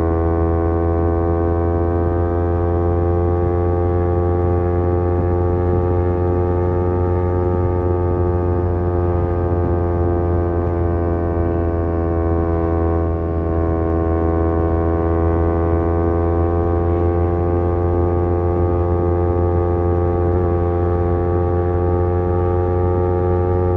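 Kawasaki Z250 parallel-twin engine running through an aftermarket SeaPro muffler at a steady cruising speed, its note dipping slightly about halfway through and then slowly rising again.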